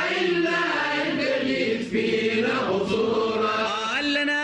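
Sufi devotional chant (inshad): voices singing a drawn-out, ornamented melodic line between verses, with choir-like voices behind it.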